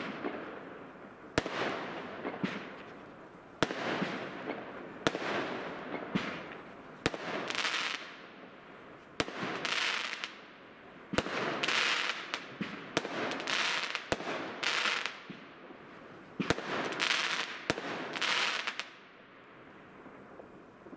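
Fireworks going off: more than a dozen sharp cracks at irregular intervals, each followed by a hissing, crackling burst lasting about a second. The bursts stop about 19 seconds in.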